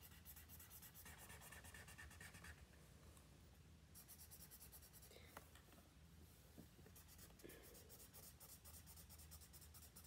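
Faint felt-tip marker scribbling on paper in quick back-and-forth coloring strokes, with a short pause about three seconds in.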